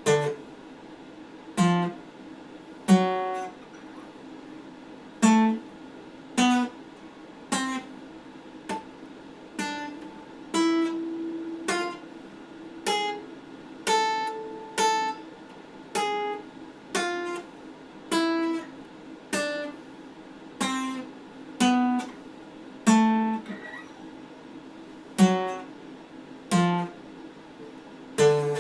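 Acoustic guitar played slowly: single notes and chords plucked about once a second, each left to ring and fade before the next.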